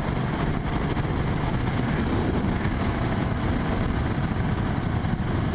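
Motorcycle engine running steadily at road speed through an exhaust fitted with a Volkswagen Beetle muffler.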